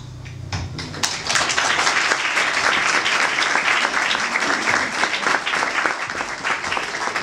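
Audience applauding, the clapping starting about a second in as the last held note of the song dies away.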